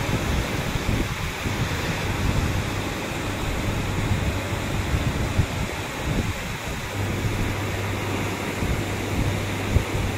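Steady rushing noise of a heavy rainstorm, rain falling and floodwater running, with a low steady hum underneath and a single sharp click near the end.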